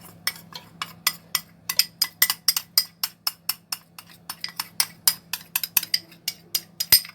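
A metal spoon clinking rapidly and repeatedly against a pot, about four or five sharp clinks a second, as starch is spooned into yogurt and worked in.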